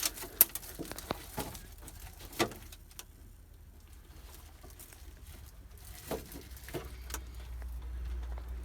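Scattered clicks and knocks from handling the fleet-tracking device and its wiring as it is set in place, the loudest about half a second in and a couple more near the middle. A low hum grows near the end.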